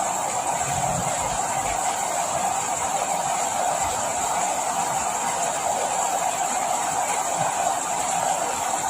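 Steady rain falling, an even hiss that neither builds nor stops.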